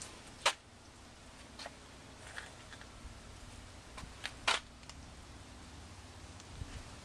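A faint background with a few short, sharp clicks, the two loudest about half a second in and about four and a half seconds in.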